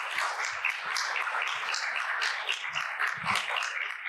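Audience applauding: many people clapping at once, steady throughout.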